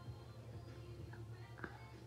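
Faint song playing from an Alexa smart speaker, with a single light click about one and a half seconds in.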